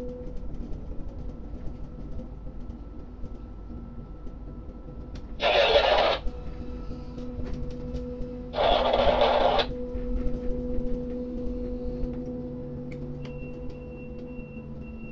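Steady machinery hum of an electric port crane heard from inside its cab, broken twice by loud bursts of hiss about a second long. A high steady tone comes in near the end.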